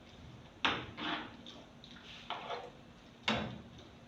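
Several sharp knocks and clatters of kitchenware around a cooking pot, each dying away quickly, about five in all.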